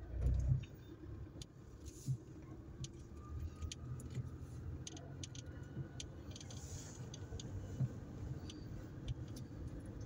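Car cabin noise while driving: a steady low engine and road rumble. There is a dull thump right at the start, and light rattles and clicks are scattered throughout.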